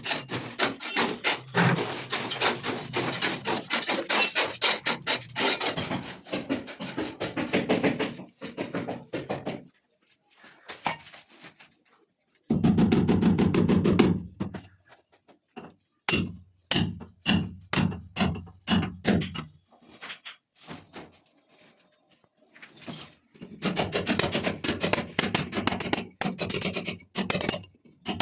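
Hammering in long runs of rapid blows, several a second, with a slower run of separate strikes in the middle. A loud steady noise cuts in for about a second and a half around the halfway point.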